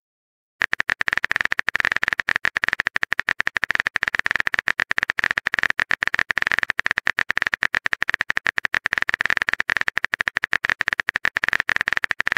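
Phone keyboard typing sound effect: a long run of rapid, even key-tap clicks as a text message is typed out letter by letter. It starts about half a second in and stops near the end.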